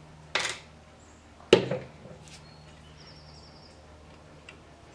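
Metal hand-tool handling on a cylinder head: a short scraping swish near the start, then a sharp metallic click about a second and a half in.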